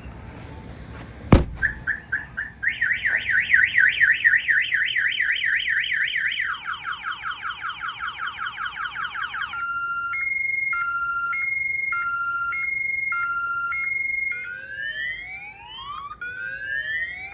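Aftermarket car alarm siren going off after a sharp knock about a second in. It steps through its tone cycle: a few short chirps, then fast rising whoops, fast falling sweeps, a two-tone high-low alternation, and slower rising sweeps near the end.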